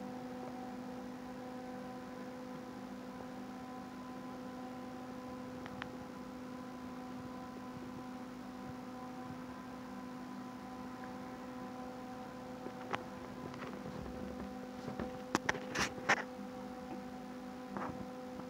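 Steady electrical mains-type hum, one low tone with evenly spaced overtones. In the second half a cluster of short, sharp clicking sounds stands out, loudest about 15 to 16 seconds in.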